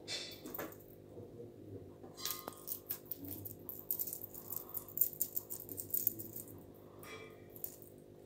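A dangling necklace chain and pendant rattling and clinking as kittens bat and grab at it, in quick uneven clusters of small clicks, busiest in the middle.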